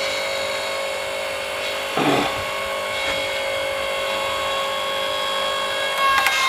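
Log splitter running steadily, pushing its ram against a tough log that resists splitting, with a brief knock about two seconds in.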